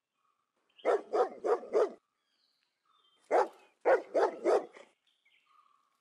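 Dog barking in two quick runs: about four sharp barks about a second in, then after a short pause another run of about four.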